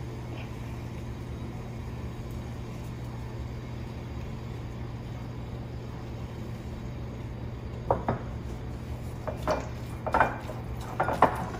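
Silicone spatula scraping a stainless steel pot and stirring in a ceramic bowl, over a steady low hum. Handful of sharp clicks and knocks from about eight seconds in, as the spatula strikes the pot and bowl.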